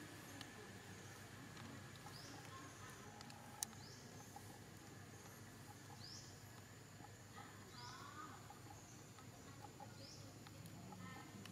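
Faint birdsong: a short rising chirp repeated every few seconds over a low hiss, with one sharp click about a third of the way in.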